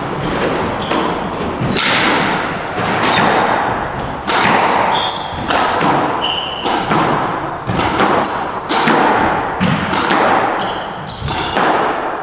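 Squash rally: the ball thudding against the court walls and racquets again and again, with short high squeaks from the players' shoes on the wooden court floor.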